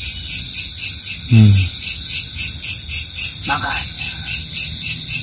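Night insects chirping in an even, high-pitched pulse of about three chirps a second over a steady high drone.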